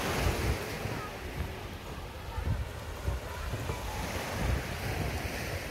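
Small waves washing onto a pebble beach, with wind buffeting the microphone in irregular low gusts.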